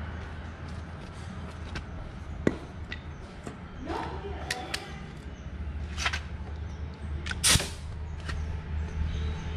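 Metal engine parts and tools clicking and knocking as a motorcycle engine's cam chain area is taken apart by hand: scattered single knocks, the sharpest about two and a half and seven and a half seconds in, over a steady low hum.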